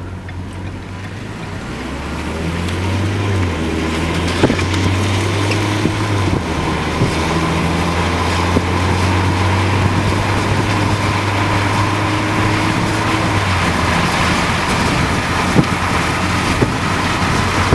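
Car driving, heard from inside the cabin: the engine hum steps in pitch a few times as it picks up speed and shifts gear, while road and wind noise grow louder over the first few seconds. A few sharp knocks stand out over it.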